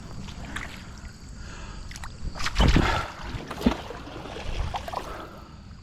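Shallow river water sloshing and splashing around a wading person and a kayak, with a louder surge of splashing a little before the middle and a sharp knock a moment later.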